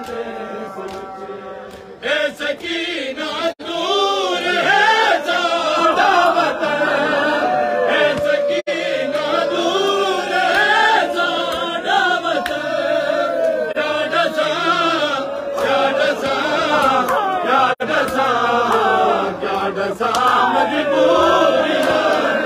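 Men's voices chanting a noha, a Shia lament for the dead, together in a group. Sharp slaps of hands striking bare chests in matam break through the chant here and there.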